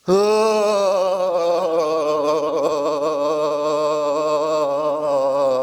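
A man's long, loud voiced out-breath, a held "ahh" starting with a slight rise in pitch and then wavering unsteadily as the body shakes: the cathartic release exhale of a shaking pranayama breathwork exercise.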